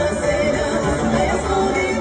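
A Transcarpathian village folk band playing live, with fiddle, cimbalom, double bass and clarinet, and a woman singing at the microphone. The music is loud and continuous, over a strong bass.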